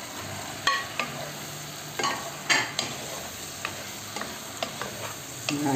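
Pieces of cooked sheep's head meat tipped into a pan of frying tomato and spice sauce and stirred with a spatula. The sauce sizzles steadily under scattered knocks and scrapes of the spatula against the dish and pan.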